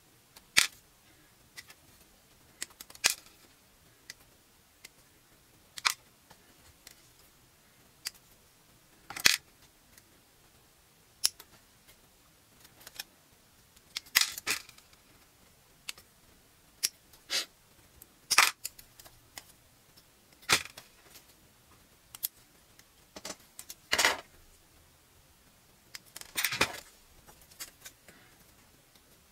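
Plastic model kit parts being snipped from the runner with hobby side cutters: sharp single clicks at irregular intervals a second or two apart, some in quick clusters, as the cut parts drop into a plastic tub.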